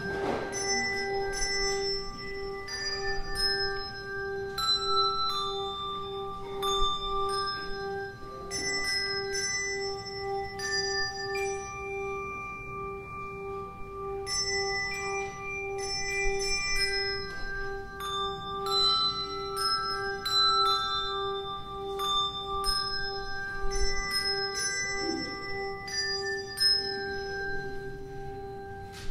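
Handbell choir playing a slow melody: single bells struck one after another, each note ringing out and fading, over a steady held low tone.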